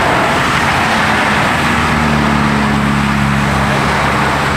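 A vehicle engine running over a steady rushing noise, with a low hum that comes in about a second and a half in.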